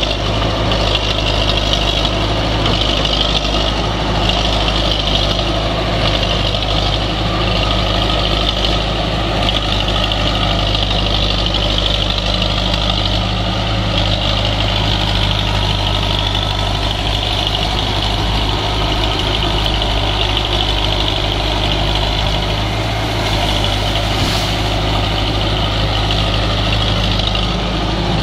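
Caterpillar 951B track loader's diesel engine running steadily.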